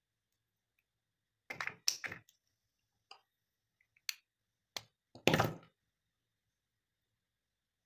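Small clicks and knocks as long-nose pliers work the metal ring onto a soldering iron's barrel: a quick cluster about one and a half seconds in, single clicks a second or so apart after it, and the loudest knock a little after five seconds.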